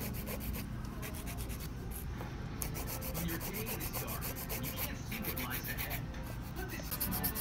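Hand nail file scraping back and forth over acrylic nails in quick, rapid strokes, in short runs with brief pauses, as the nails are shaped.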